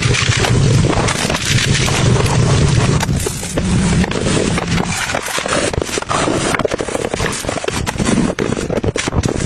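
Cleaning sponge being worked by hand, a dense crackling and scraping. About halfway through it turns into sharper, more separate crackles.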